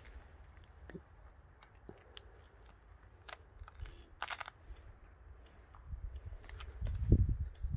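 Handling noise from a handheld camera: scattered small clicks and rustles, then a louder run of low, uneven bumps near the end as the camera is moved.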